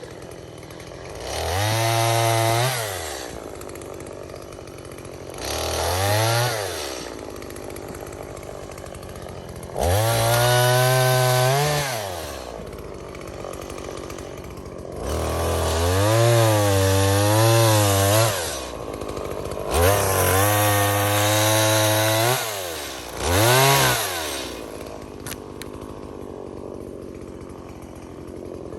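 Chainsaw revving up hard six times into the wood, each burst lasting one to three seconds with its pitch wavering under load, and dropping back to a steady idle in between.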